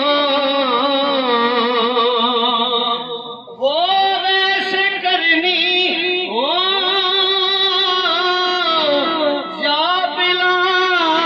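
A man singing a naat solo into a microphone, without instruments: long held notes with wavering ornaments, broken by a short breath about three and a half seconds in before the next phrase rises.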